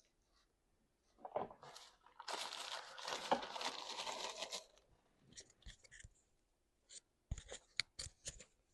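Food packaging being torn open and crinkled for a couple of seconds, then a few sharp clicks and taps as it is handled.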